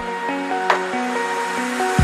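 Background electronic music with a drum beat over held synth chords.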